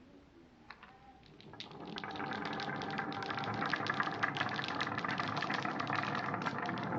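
Many marbles rolling and clattering down a wooden marble run, a dense rattle of quick clicks that builds up about two seconds in and keeps going.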